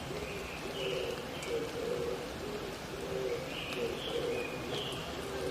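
Oriental turtle doves cooing in a repeated series of low notes. Twice, another bird's short run of higher notes rises over them. Underneath is a faint steady hiss of the wet forest.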